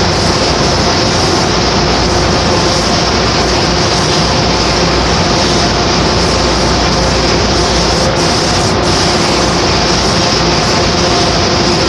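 Steady loud hiss and hum of a paint spray booth: the spray gun's air blast over the booth's extraction fan. The high hiss dips briefly twice about eight seconds in.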